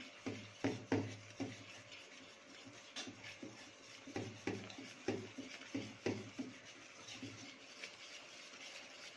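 Whisk stirring a thick egg and flour batter in a stainless steel bowl, scraping and tapping against the bowl in irregular strokes about two a second.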